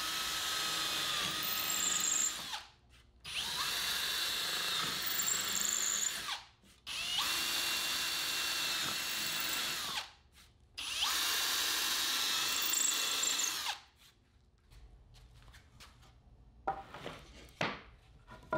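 Power drill boring screw holes through a wood board, four runs of about three seconds each with short pauses between, the motor spinning up at the start of each and winding down at the end. A few light knocks near the end.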